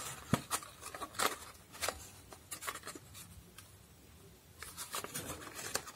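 Cardboard box and packaging of a new knitting-needle set being handled and opened, short scrapes and clicks as the needles are worked out with difficulty, a brief pause, then more rustling near the end.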